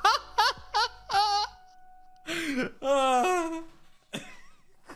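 Short voice calls and exclamations over background music; the music cuts off about a second and a half in.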